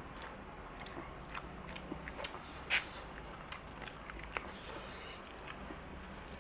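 Close-up eating sounds of mutton curry with rice: wet chewing with many small mouth clicks and smacks, and one sharper, louder click a little before the middle.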